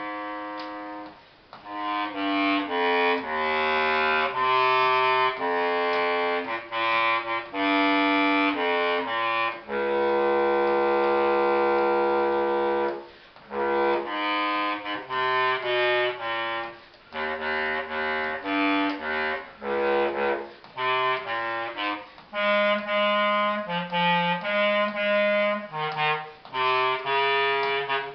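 Holton bass clarinet played solo: a melodic line of separate notes, with one long held note about ten seconds in and short breaks for breath.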